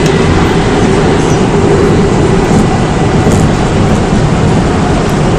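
Seoul Metro Line 4 4000-series electric train with Mitsubishi GTO VVVF traction running along the line: a loud, steady rumble of wheels and car noise with a faint steady high tone.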